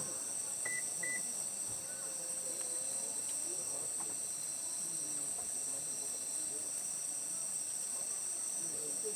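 Night insect chorus, a steady high-pitched trilling that does not change, with two short high chirps about a second in.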